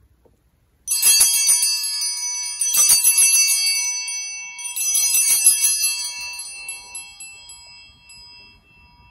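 Altar bells shaken three times, about two seconds apart, each ring a jangle of many high tones that fades, the last dying away slowly. They are rung at the elevation of the consecrated host.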